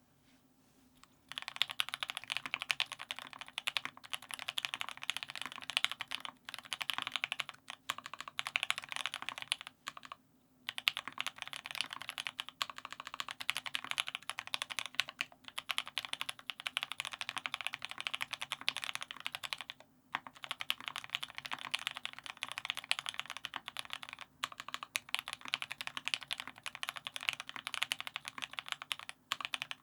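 Continuous typing on a TX84 custom mechanical keyboard with an aluminium plate, Tealios V2 linear switches lubed with Krytox 205g0 and fitted with black Cherry tops, and GMK Mizu keycaps. The keystrokes come as a dense run of clacks starting about a second in, with short pauses around ten and twenty seconds.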